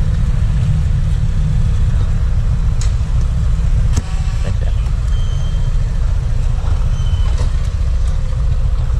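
Motor scooter engine idling: a steady low rumble, with a sharp click about four seconds in.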